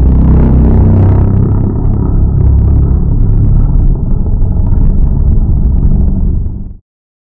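Super GT race car engines: a loud, steady low rumble with several engine notes layered together, which cuts off abruptly near the end.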